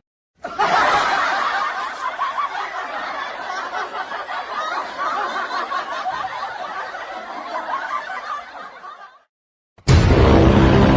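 Recorded crowd laughter, used as a meme sound effect: many people laughing together for about nine seconds, slowly dying down. Near the end a much louder new sound cuts in abruptly.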